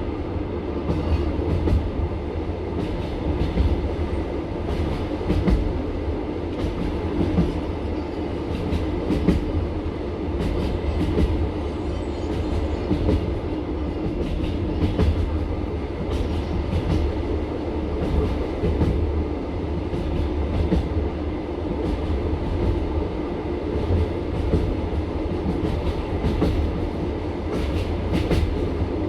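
Passenger train carriage running, heard from inside: a steady low rumble from the running gear, with the wheels clicking over rail joints many times throughout.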